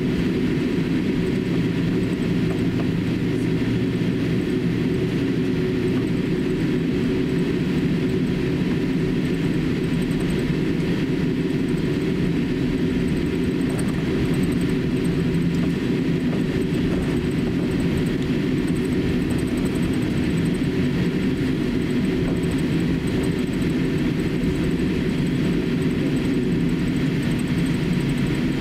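Cabin noise of a Boeing 787-8 airliner taxiing: its GEnx turbofan engines at idle give a steady low rumble and hum.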